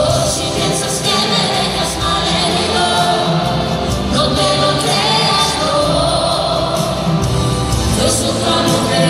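Live pop song with singers and band over an arena's sound system, recorded from among the audience.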